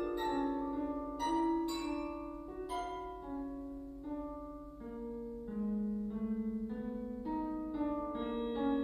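Contemporary concert music: slow, overlapping, ringing pitched notes with a mallet-like quality, a few sharp struck attacks in the first three seconds, and a low line that steps down in pitch before settling.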